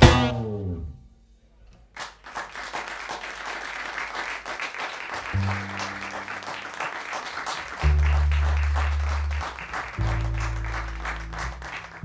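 The jazz trio's closing note on tenor saxophone, double bass and drums dies away, and after a second of near silence the audience applauds. From about five seconds in, low held notes sound under the applause.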